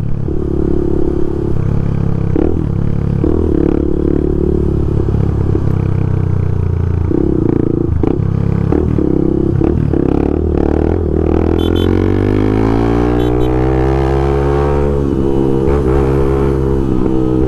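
Honda Twister motorcycle's single-cylinder engine running at road speed with its intake hose removed. Its pitch climbs for a couple of seconds about twelve seconds in, then levels off.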